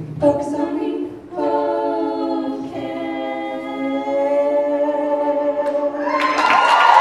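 A man and two women sing a long held closing chord in close harmony, the voices shifting together partway through. About six seconds in, the audience breaks into cheering and applause.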